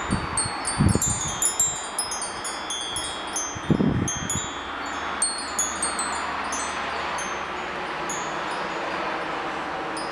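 Wind chimes tinkling: many small high-pitched strikes ringing in quick succession, thinning to scattered strikes after about halfway, over a steady hiss of breeze. Two brief low rumbles of wind on the microphone come about one and four seconds in.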